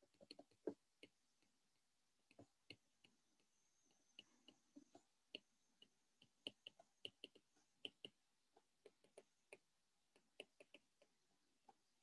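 Faint, irregular clicks and taps of a stylus tip on a tablet's glass screen during handwriting, several a second at times.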